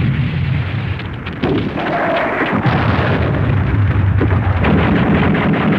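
Archival World War II battle sound effect: a loud, dense, continuous rumble of gunfire and explosions over a low, steady drone.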